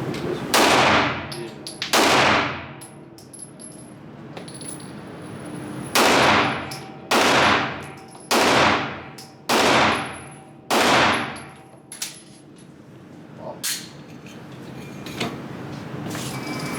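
Staccato pistol firing seven shots, each with a short echoing tail. Two shots come about a second and a half apart, then after a pause five more at a steady pace of about one a second. A couple of fainter shots sound later.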